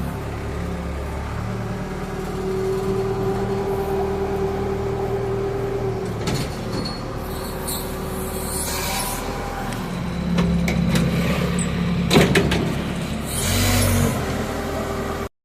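Excavator's diesel engine running under load, the pitch of its drone shifting as the machine works. A steady whine holds for a few seconds a couple of seconds in, and a couple of sharp knocks come near the end.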